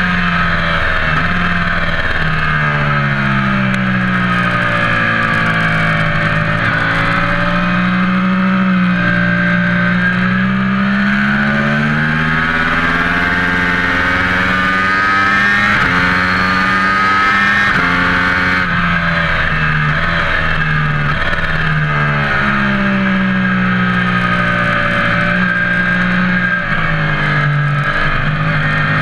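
Motor vehicle engine running steadily, its pitch rising and falling slowly every few seconds as the revs change.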